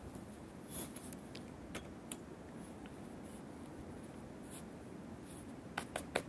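A flagpole being handled and set back into its base: faint scraping with a few light clicks, and a quick run of sharper knocks near the end.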